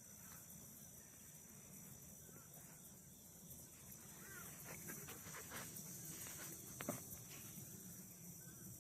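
Quiet outdoor ambience: a steady high insect hiss with a few faint chirps and soft ticks.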